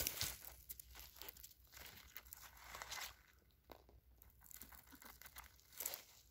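Faint, irregular crackling and rustling of dry straw stubble being disturbed, in short uneven bursts with a louder crackle at the very start and another near the end.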